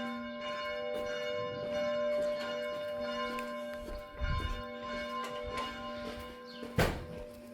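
Church bell ringing on after being struck, its several tones holding and slowly fading. A sharp knock comes near the end and is the loudest sound.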